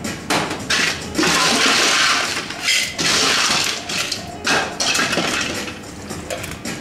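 Ice cubes scooped and poured into a stainless-steel cocktail shaker, clattering against the metal in several bursts, the longest about a second and a half.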